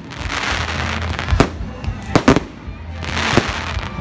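Aerial fireworks going off: four sharp bangs of bursting shells, two of them close together, with a rushing hiss in between.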